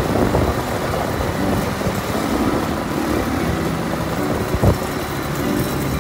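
Quad bike (ATV) engines running steadily at low speed, with one sharp knock about three-quarters of the way through.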